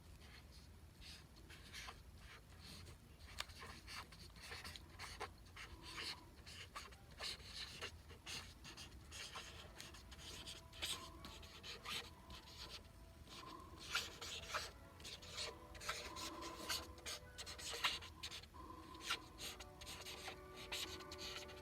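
A pen scratching over paper in quick, short strokes as a script is written out rapidly.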